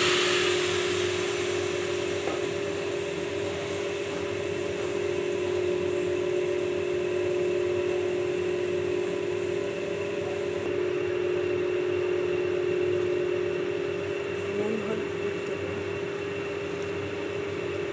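Fresh spinach and mixed vegetables hissing in a hot kadai, over a steady mechanical hum. The hiss is strongest at the start as the vegetables go in, and its higher part drops away about ten seconds in.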